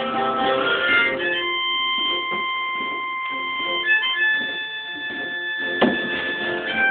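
Blues harmonica playing over guitar accompaniment: a quick run of short notes, then two long held notes, the second higher than the first, while the guitar keeps picking underneath.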